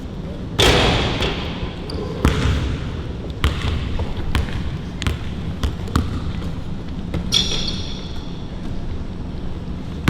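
Basketball being dribbled on a court: a string of sharp bounces at uneven spacing, with a louder, noisy burst about half a second in.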